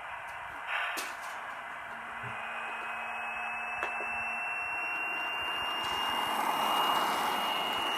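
Hornby TTS sound decoder playing a recorded Paxman Valenta diesel engine through a model InterCity 125 power car's small speaker: a hissing engine sound with a high whine that slowly rises in pitch, growing louder towards the end.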